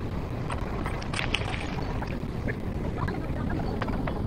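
Wind buffeting the microphone as a low, steady rumble, with a few faint clicks or taps.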